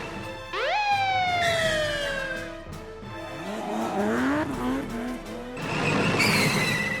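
Cartoon-style toy vehicle sound effects: an engine-like tone jumps up sharply and slowly winds down, then a run of quick revving rises, and near the end a noisy skid-like hiss. Background music sits under it.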